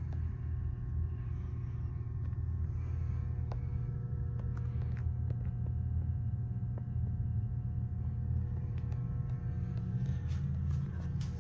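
A steady low rumble, with faint held tones above it and a few light clicks near the end.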